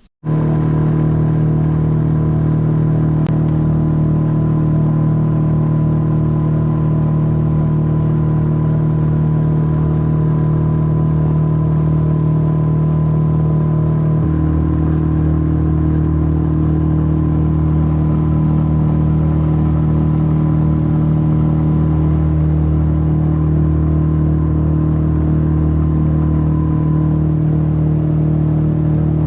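A small boat's outboard motor running steadily under way, its engine note shifting to a different speed about halfway through.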